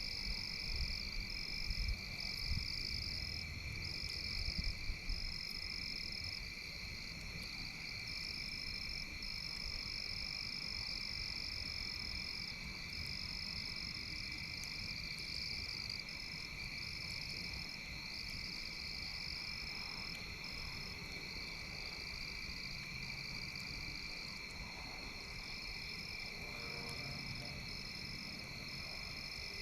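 A steady outdoor night chorus of frogs and insects: a continuous high trilling, with a higher buzz above it that pulses on and off every second or two. There are a few low knocks in the first few seconds.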